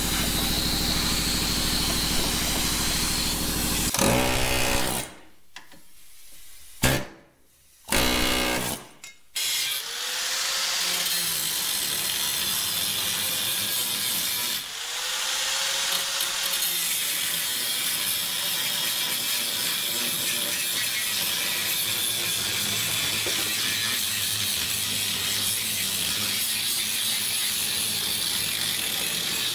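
Electric angle grinder with a cut-off disc cutting through the steel windshield pillar of a Nissan Hardbody pickup cab, running steadily. It stops for a few seconds about five seconds in, with short bursts in the gap, then starts again and runs on.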